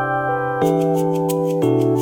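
Background music: sustained keyboard chords over a bass line, with a light ticking beat that comes in about half a second in and a chord change near the end.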